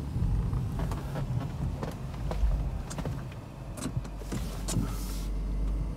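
A BMW E46's engine running at low speed, heard from inside the cabin as the car is eased into its parking spot, with scattered light clicks and knocks and a brief hiss about five seconds in.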